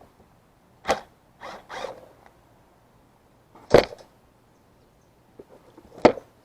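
Small metal and plastic parts and tools being handled on a workbench: three sharp clacks, about a second in, near the middle and near the end, with a short scraping rustle after the first.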